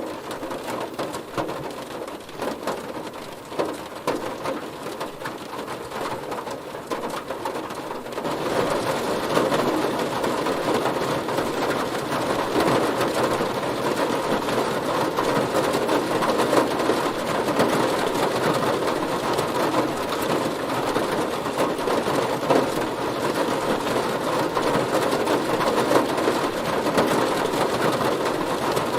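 Rain drumming on a car's body. For the first eight seconds it falls lighter with separate drop strikes, then about eight seconds in it turns suddenly heavier and denser and holds as a steady downpour.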